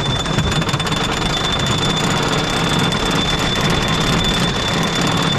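Wooden roller coaster train being hauled up its chain lift hill: the lift chain and the anti-rollback dogs clatter rapidly and steadily, with a thin steady high whine over it.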